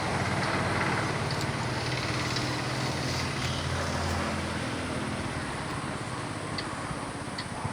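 A vehicle running, its engine humming low under a steady rushing noise; the hum fades about five seconds in and the rushing goes on.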